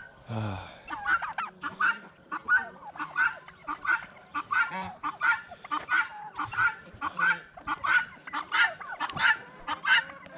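Geese honking over and over, a rapid run of short calls at about two or three a second, with a brief rushing noise just after the start.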